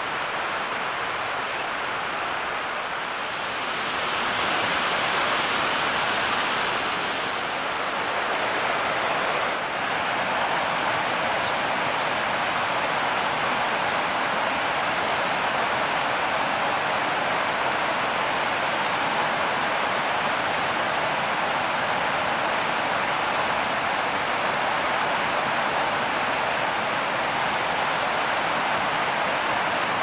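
River water rushing steadily over shallow rapids.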